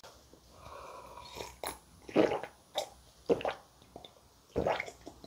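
A person drinking from a mug close to the microphone: a soft sip, then about five gulping swallows roughly half a second apart.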